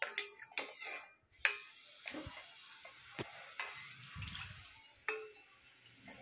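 Stainless steel ladle clinking against steel pans several times as warm milk is scooped and poured into beaten curd, with liquid splashing in between.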